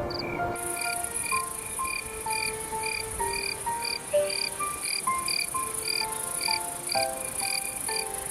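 Nature ambience of frogs and insects: short rhythmic chirps about two a second over a steady high insect drone that starts about half a second in, with a slow run of soft held tones at changing pitches beneath.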